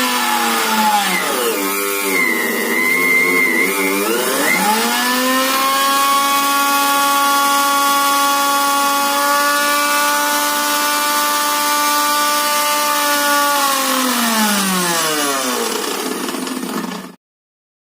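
Philips HL7707 750-watt mixer grinder's motor running at high speed as a loud, steady whine. Its pitch dips about a second in and climbs back by about four and a half seconds, then falls from about fourteen seconds as the motor winds down, and the sound cuts off suddenly near the end.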